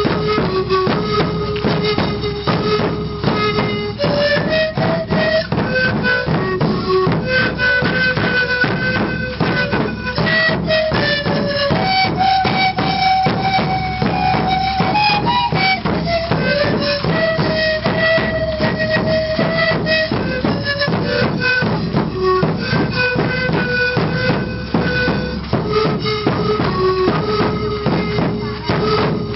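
Andean wooden end-blown flutes playing a slow melody of long held notes that step up and down, over steady beats of large double-headed drums.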